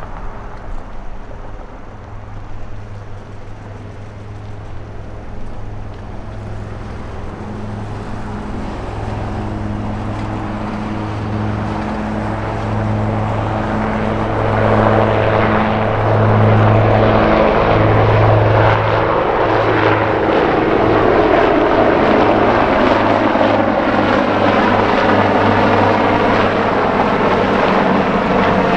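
Marine Corps UH-1Y Venom and AH-1Z Viper helicopters lifting off and flying, a pulsing rotor beat with turbine whine that grows louder over the first half and then holds steady and loud.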